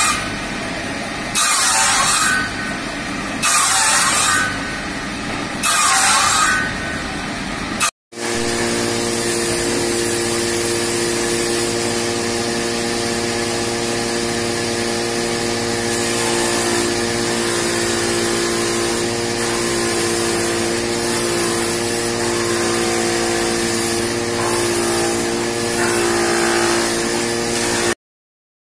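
A power saw cutting wood, with a loud pass about every two seconds. After a short break, a woodworking machine's rotating cutter head runs with a steady, even hum as it machines a wooden strip.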